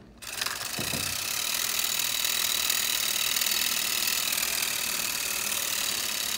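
Homemade 3D-printed brushed DC motor starting up as power is connected and then spinning fast, its bent-wire brushes running on the commutator. A dense, steady mechanical noise comes in about half a second in and holds.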